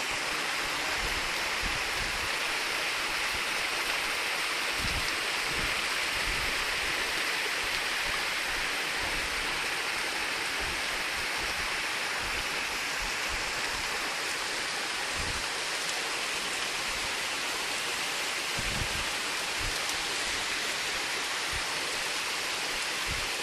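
Waterfall running: a steady, unbroken rush of falling and splashing water, with a few brief low bumps underneath.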